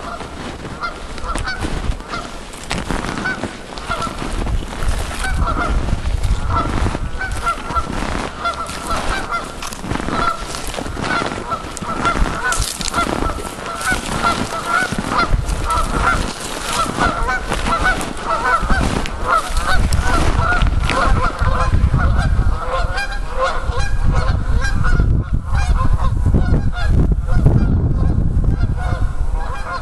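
A flock of Canada geese honking continuously, many short calls overlapping. A low rumble grows stronger in the second half.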